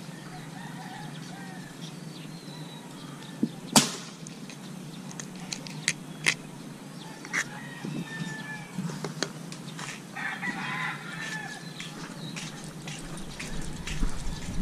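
A rooster crowing once about ten seconds in, with fainter fowl calls near the start, over a steady low hum. A few sharp clicks, the loudest about four seconds in.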